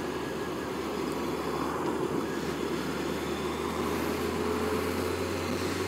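Sports motorcycle's engine running steadily at a cruise, with wind and road noise over the rider's microphone.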